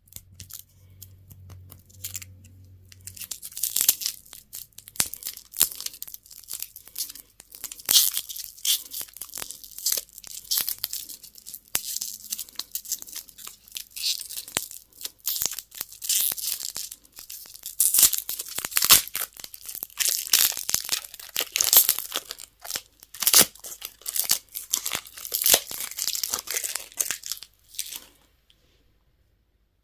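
Candy wrappers being torn open and crinkled by hand, a dense, irregular run of rips and crackles that stops suddenly near the end.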